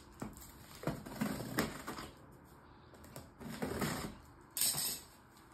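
Scissors cutting through packing tape on a cardboard box: several bursts of scratchy scraping and clicking as the blade is drawn along the taped seam, with a louder, hissing rip near the end.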